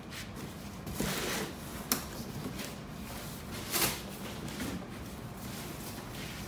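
Cardboard scraping and rustling as an outer shipping box is slid up off the inner product box, in several separate scrapes, with a sharp knock about two seconds in and the loudest scrape near four seconds in.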